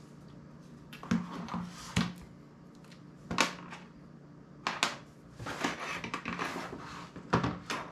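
Small hand tools and phone parts being handled on a tabletop: an irregular series of sharp clicks and knocks as a precision screwdriver, tweezers and a plastic bit case are picked up and set down, with rustling and scraping between them.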